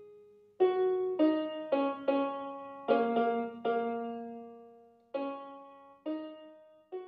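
Background music: a slow melody on a piano-like keyboard, notes struck one or a few at a time and left to ring out and fade, with a brief lull a little after the middle.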